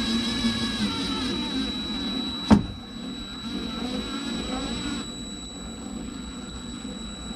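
DeWalt cordless drill/driver driving a screw, its motor running under load for about two and a half seconds and ending in a sharp click, then a second, shorter and quieter run. A thin steady high whine sits under it throughout.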